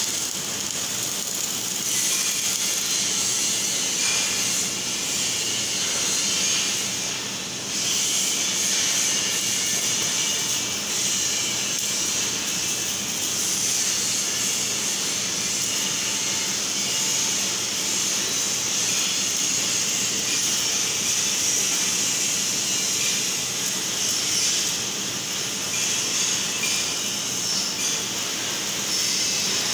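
MIG welding arc on steel, a steady hiss that briefly drops about seven seconds in.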